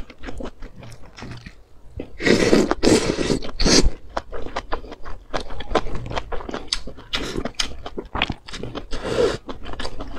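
Close-miked wet chewing and mouth smacking as noodles and meat from a spicy broth are eaten, with a loud slurp of noodles about two seconds in lasting nearly two seconds and another shorter one near the end.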